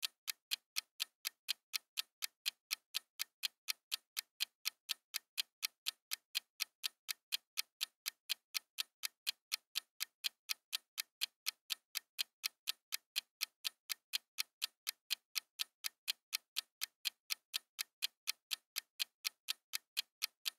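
Clock-ticking sound effect keeping time for a countdown timer, steady even ticks at about three a second.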